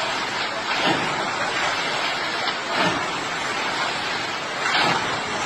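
Steady roar of a fast, muddy river in flood, its rushing water filling the sound.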